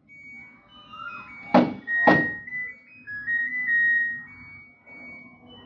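LG front-load washing machine's end-of-cycle signal: two sharp clunks of the door lock releasing, then a short electronic tune of stepped beeping notes.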